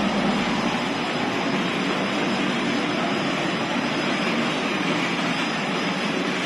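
Pet-food production machinery running: a steady, even whirring drone from the incline belt conveyor and the oven line with its fans, with no breaks or changes.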